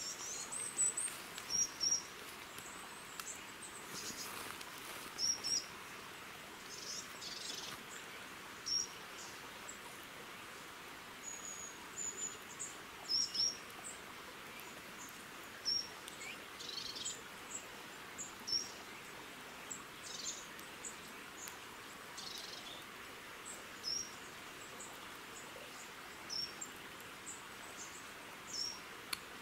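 Woodland birdsong: short, high chirps and calls from several small birds, scattered throughout over a steady hiss of running water.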